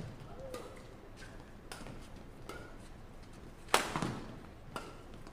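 Badminton rackets striking the shuttlecock in a fast doubles rally: a run of sharp hits about half a second to a second apart, the loudest a little under four seconds in.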